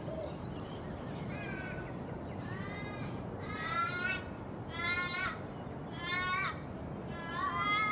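A crow cawing repeatedly: about six harsh, falling caws roughly one a second, the middle ones loudest.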